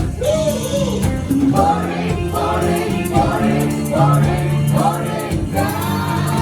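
Gospel worship music: several voices singing together over a band with sustained low notes and a steady beat.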